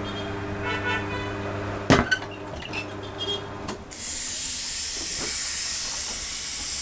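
Metal tools clinking and knocking over a low steady hum. About four seconds in, a loud steady hiss of air starts, as from a compressed-air line during tire work.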